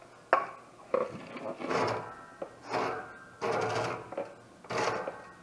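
Hand tools working the metal adjuster rod of a Camso X4S track's rear suspension: two sharp clicks, then four short strokes about a second apart.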